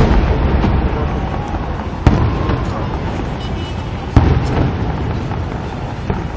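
Fireworks shells bursting: two sharp booms about two seconds apart, with a continuous rumble of other bursts between them.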